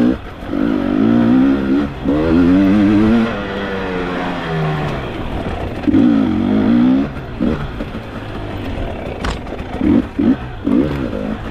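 Dirt bike engine revving up and falling back over and over as the throttle is opened and closed on a rough trail, with short quick blips in the second half. A single sharp knock about nine seconds in.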